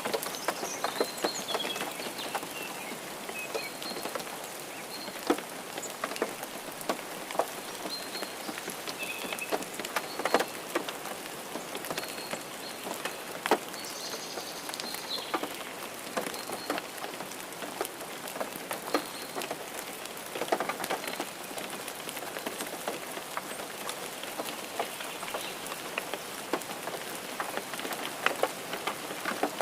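Steady rain falling on a hard surface, with many distinct drops landing close by.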